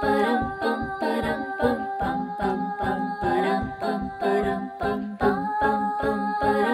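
Background music: a song with held sung notes over a short chord repeated in a steady quick pulse.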